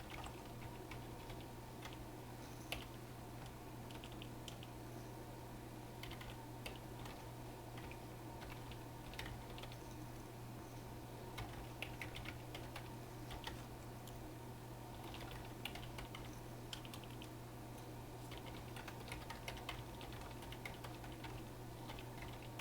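Computer keyboard typing in uneven bursts of keystrokes, over a steady low hum.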